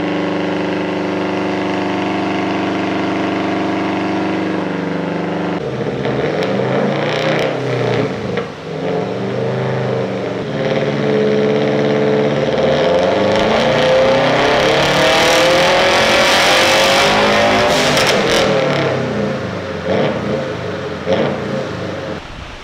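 2015 Subaru STI's turbocharged 2.5-litre flat-four making a full-throttle power run on its baseline tune. It runs steady for about five seconds, then rises in pitch for about twelve seconds before the throttle shuts and it drops back.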